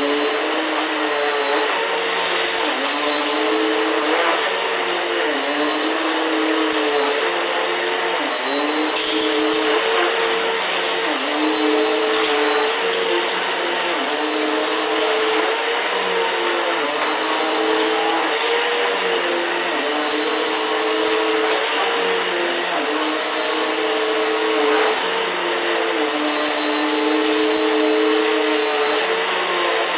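Eureka PowerSpeed upright vacuum running steadily with a high motor whine, its lower hum dipping and recovering every couple of seconds. Scattered crackles of crunchy debris being sucked up, thickest about a third of the way in.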